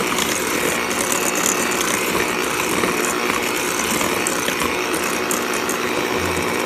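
Breville electric hand mixer running steadily, its beaters whipping a thick egg-and-sugar batter in a stainless steel bowl.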